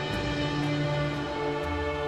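Background music: held, sustained chords, with new notes coming in about a second and a half in.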